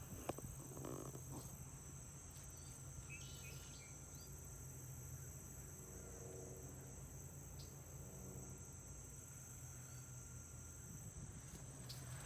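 Steady, high-pitched insect chorus in summer woods, a continuous buzzing drone typical of crickets.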